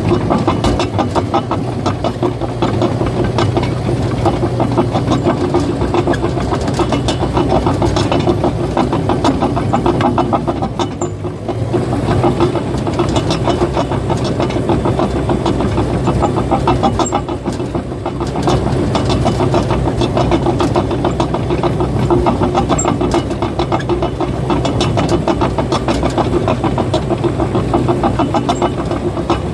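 Caterpillar bulldozer's diesel engine running steadily with its steel tracks clattering in a fast, continuous rattle, easing off briefly twice.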